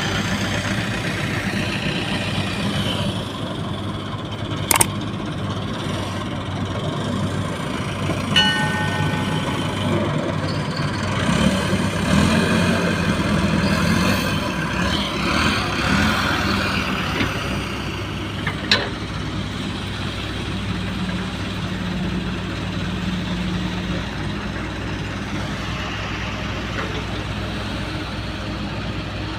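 Hyundai excavator's diesel engine running steadily, working harder for a few seconds midway. Two sharp knocks, one about five seconds in and one past the middle, and a short beep about eight seconds in.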